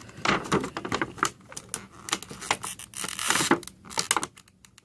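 Cardboard and plastic packaging of a trading-card collection box being handled to free the cards inside: a run of small clicks and taps, with a short rustle about three seconds in.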